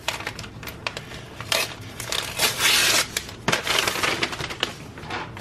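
Plastic poly mailer rustling and crinkling as its sealed flap is peeled open and the plastic bags inside are slid out: a run of irregular crackly swishes, loudest around the middle.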